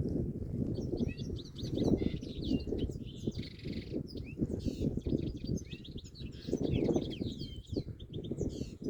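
Birds chirping in quick runs of short high notes over a loud, rushing wash of running water that swells and ebbs.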